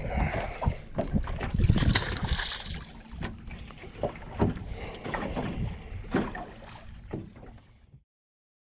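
Wind rumbling on the microphone out on the water, with scattered knocks, clatter and water noise as from a small fishing boat. It fades away and cuts to silence near the end.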